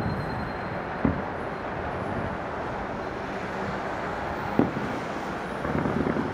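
Distant fireworks going off over a steady background rumble of open-air city noise: a sharp bang about a second in, another about four and a half seconds in, and a quick run of bursts near the end.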